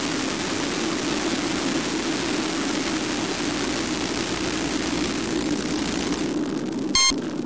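Steady rushing noise from an FPV model airplane gliding with its motor throttled off. Near the end, one short, loud electronic beep.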